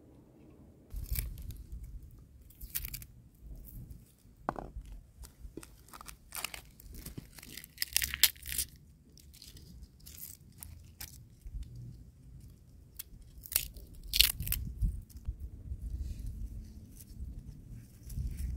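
Dry, papery garlic skins crackling and tearing as they are peeled off the cloves by hand and with a small knife, in short, irregular crackles.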